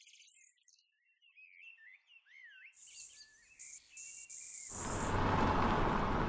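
Small birds chirping faintly, then an even rushing noise that swells in about three seconds in and becomes loud in the second half.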